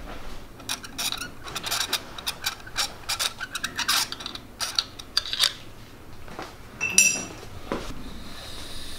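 Metal hand tools working on a bare engine: a run of short, irregular clicks and rasps for about five seconds, then a single sharp metal clink that rings briefly, about seven seconds in.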